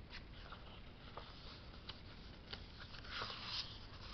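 Faint paper rustling and small clicks from a picture book's pages being handled and turned, the rustle loudest a little past three seconds in.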